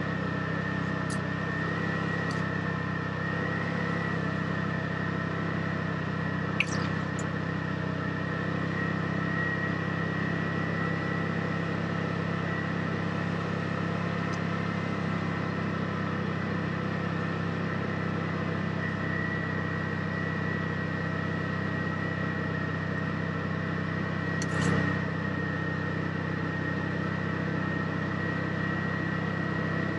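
Side-by-side UTV engine running steadily, a constant low drone with a thin steady high whine over it. A sharp click cuts in about six seconds in, and there is a brief knock near the end.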